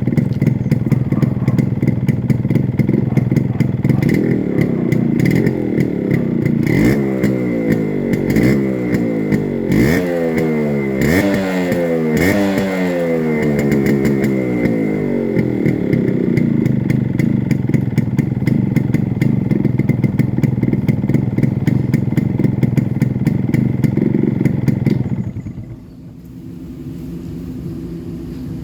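Yamaha RXZ two-stroke single-cylinder motorcycle engine running through its stock silencer and muffler, idling and blipped up several times in quick succession before settling back to a steady idle. Near the end the sound drops sharply to a much quieter level.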